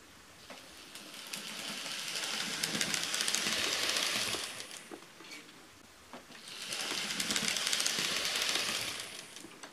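KATO N-gauge D51 model steam locomotive running past on its track: the whir of its small electric motor and the fine clatter of its wheels on the rails, swelling up and dying away twice.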